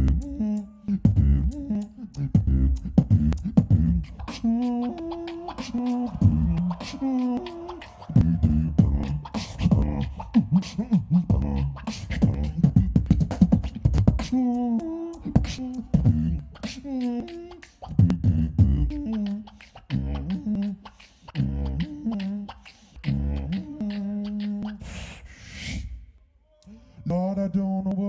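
Solo beatboxing through a stage microphone: deep bass kicks with sharp clicks and snares in a quick beat, and pitched hummed or sung lines layered over it in several stretches. About 25 seconds in comes a high hissing sweep, then a brief drop before the beat comes back.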